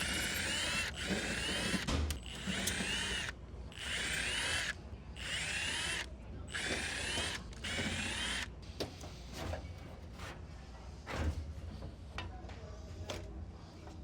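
Power drill with a driver bit running in a run of short bursts of about a second each, its whine winding up and down, as screws are worked on the dryer's panels. For the last several seconds, lighter scattered clicks and knocks of parts being handled.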